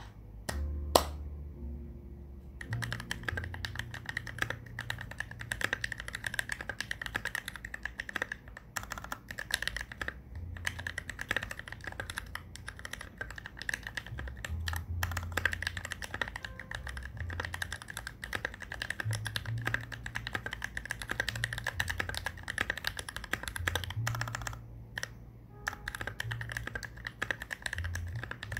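Typing on a Novelkeys NK65 Entry Edition mechanical keyboard fitted with Gateron Ink Black v2 linear switches lubed with Krytox 205g0, an aluminium plate, a polycarbonate case and PBT keycaps. A single sharp click comes about a second in, then fast continuous keystrokes from about two and a half seconds, with brief pauses.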